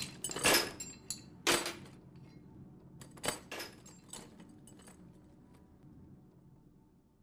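Metal hand tools clinking and clattering against each other: a handful of sharp clinks, roughly one a second, that thin out and fade away over the last few seconds.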